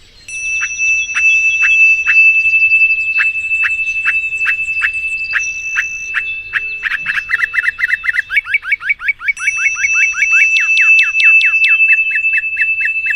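Songbird singing: a short falling whistled note repeated about twice a second, speeding up about seven seconds in into a fast trill and then easing off again. The song runs over a steady high held tone.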